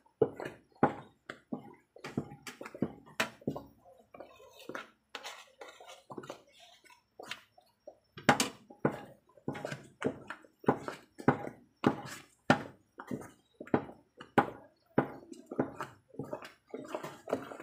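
Thick ube halaya mixture cooking in a pan: a steady run of soft thuds and plops, about two a second, as the boiling purple yam paste is worked.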